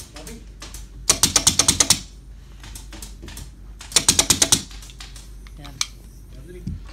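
Pneumatic upholstery staple gun firing staples through sofa fabric into the frame, in two quick bursts of about eight shots each, one about a second in and another near four seconds in.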